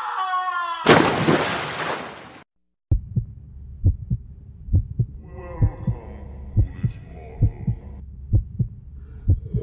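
A man screaming, his voice falling in pitch, cut off about a second in by a loud burst of noise. After a brief silence, a heartbeat sound effect starts: low double beats a little under once a second, with faint muffled voices over them near the middle.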